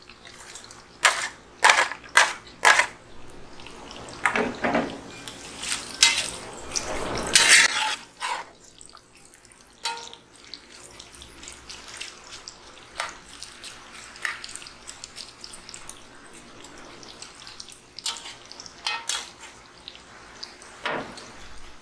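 Diced onions knocked and scraped off a plate into a cast-iron Dutch oven of frying bacon, with several sharp knocks in the first few seconds and loud scraping around the middle. Then a spatula stirs and scrapes against the cast iron while the bacon fat sizzles with small scattered pops.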